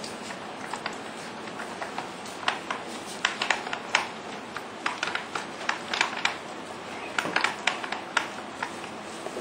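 Toy poodle puppies at play: many light, irregular clicks and taps, a few every second.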